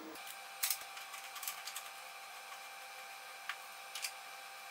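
A handful of sharp clicks and taps from hands working the front panel and cable connectors of an HP 8595E spectrum analyzer, the loudest under a second in, over a faint steady whine.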